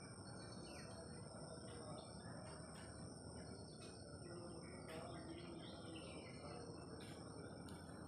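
Faint outdoor ambience: scattered bird chirps over a steady, high-pitched insect trill.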